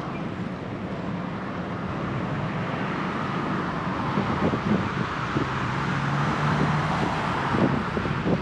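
City road traffic heard from a moving bicycle, with wind on the microphone. A passing motor vehicle grows louder through the middle, adding a low steady hum for a second or two.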